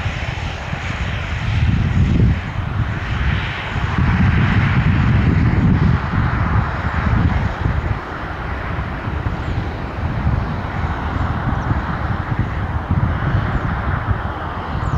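Jet airliner engines rumbling loudly as the aircraft passes, the noise easing off somewhat in the second half.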